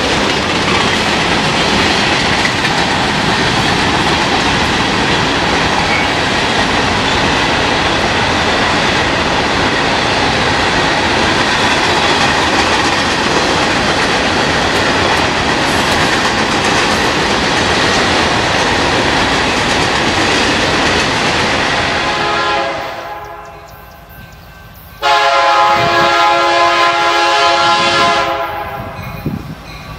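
A long freight of covered hopper cars rolling past, its wheels making a steady loud rolling noise on the rail. About 25 seconds in, an approaching diesel locomotive sounds its multi-note air horn in one long blast of about three seconds.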